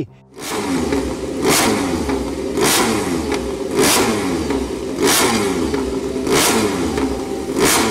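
Repsol Honda RC213V MotoGP bike's V4 engine on a paddock stand, revved in six sharp blips about 1.2 seconds apart, falling back between each one.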